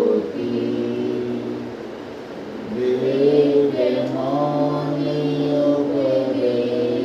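Devotional chanting, voices singing in long held notes, fading for a moment about two seconds in and then resuming.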